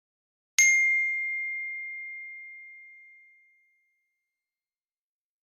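A single bell-like ding about half a second in, struck once, with one clear ringing tone that fades away over about three seconds.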